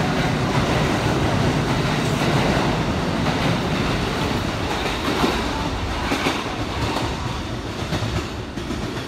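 Electric train pulling out past the platform, its wheels clicking over rail joints and points, fading near the end as the last car goes by.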